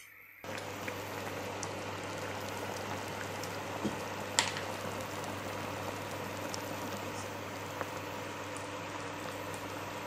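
Chicken curry boiling and bubbling in a frying pan on an induction cooktop, a steady hissing bubble that starts abruptly about half a second in, over a steady low hum. A few sharp ticks sound over it, the loudest near the middle.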